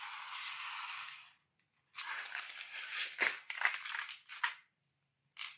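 Clear plastic blister pack crinkling and crackling as it is handled and turned over. A rustle lasts about a second, then comes a run of crackles and light taps, and one short click near the end.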